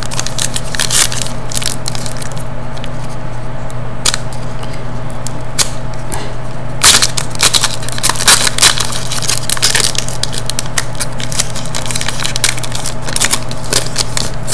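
Foil trading-card pack wrapper crinkling as it is handled and cut open with scissors, with scattered crackles and snips that come thickest from about seven seconds in. A steady low hum runs underneath.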